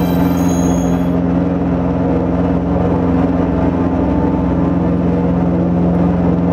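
Dense, steady electronic drone: low sustained tones over a rumbling, grainy texture, with high ringing tones fading out about a second in.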